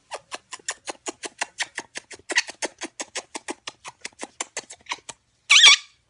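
A fast, even run of small clicking smacks, about six a second, from a parrot's beak working at a man's lips as they kiss. Then comes one short, loud parrot squawk near the end.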